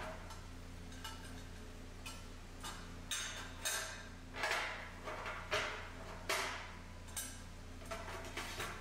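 Sheet-metal parts of a folding rocket stove clinking and knocking against each other and the steel table as the stove is folded up, in a series of separate sharp metallic knocks at an uneven pace, over a steady low hum.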